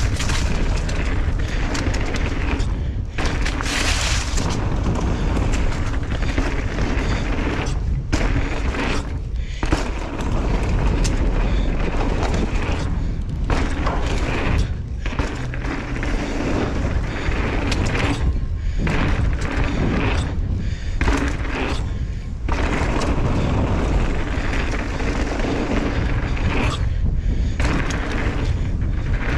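Wind buffeting a helmet-mounted camera's microphone during a fast downhill mountain bike run, a heavy steady rumble mixed with tyre and trail noise and broken by brief dropouts.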